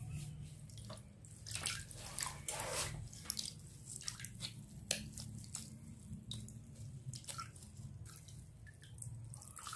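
Milky liquid dripping and splashing into a bowl as a soaked cloth bundle of ground paste is squeezed out by hand. The drips come in irregular bursts over a faint steady low hum.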